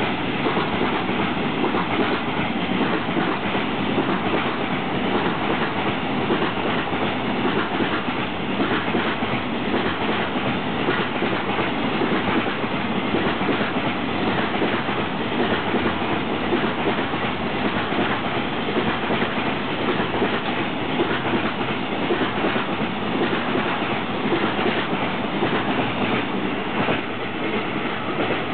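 A long freight train of loaded container flat wagons rolling past, its wheels clacking over the rail joints in a steady repeating rhythm over a continuous rumble.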